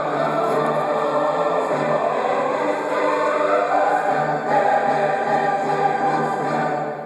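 A large choir and symphony orchestra performing together, with sustained sung and orchestral chords. Near the end the music stops and the sound begins to die away.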